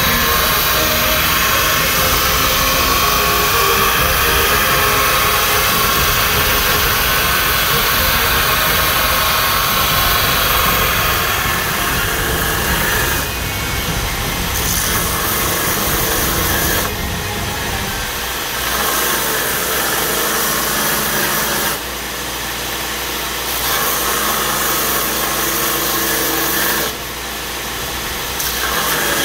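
Belt grinder running with a steel blank cut from a truck spring pressed against the abrasive belt: a steady, loud grinding hiss over the motor's hum. In the second half the blade comes off the belt four times for a second or so, leaving mostly the motor running.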